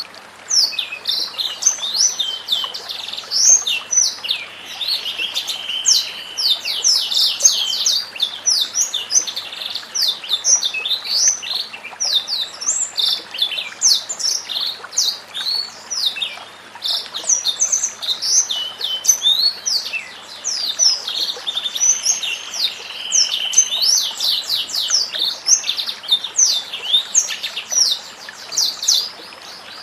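White-rumped shama (murai batu) singing without pause: a fast run of sharp chirps and whistled sweeps. A phrase with a short held whistle comes round twice, about 5 and 23 seconds in.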